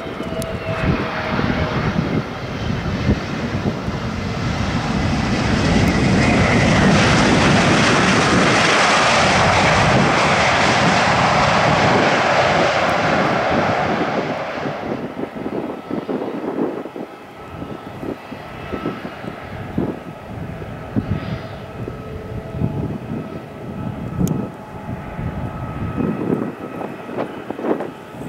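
Jet engines of an Airbus A320neo (CFM LEAP-1A) on its landing roll. They swell to a loud roar a few seconds after touchdown, hold for several seconds, then drop away sharply about fifteen seconds in. What follows is a quieter steady whine from the engines at low power while taxiing, with a rough low rumble throughout.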